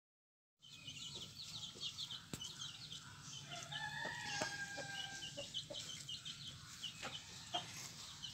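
Young chicks peeping in many short, high cheeps, with an adult chicken's longer drawn-out call near the middle. The sound comes in about half a second in.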